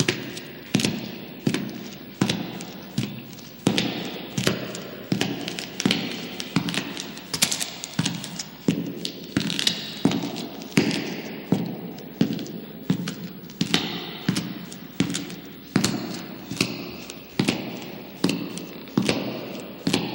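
Heavy footsteps walking at a steady pace in a tunnel, about three steps every two seconds, each step ringing on in the tunnel's echo.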